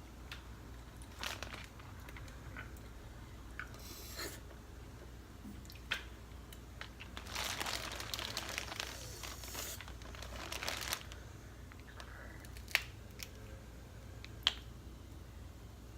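Snow crab leg shells being cracked and picked apart by hand, with a few sharp snaps and a longer stretch of crinkling and rustling about halfway through.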